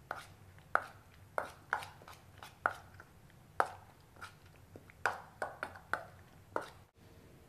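A spoon stirring pizza toppings in a small container, knocking sharply against its side about a dozen times at an irregular pace.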